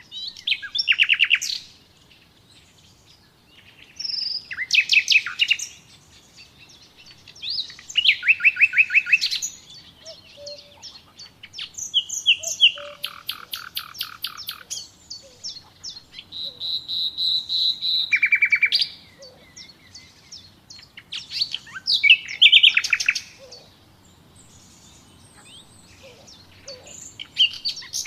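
Songbird singing: a phrase of rapid, repeated high notes, like a quick trill, sung about every three to four seconds, around seven times in all.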